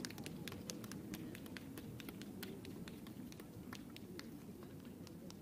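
Faint murmur of distant crowd voices, with many small scattered clicks and ticks over it.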